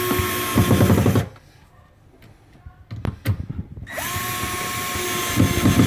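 Electric drill-driver driving screws to fix a cabinet hinge: two runs, each spinning up to a steady whine and ending in a rougher, rattling stretch as the screw is driven home. The first run ends about a second in and the second starts about four seconds in, with a couple of clicks in the quiet between.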